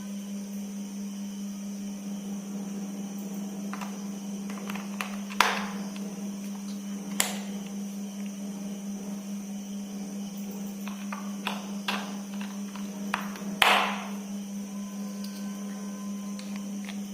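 Steady hum of a small electric motor, one even tone, with a few scattered clicks and taps; the loudest click comes near the end.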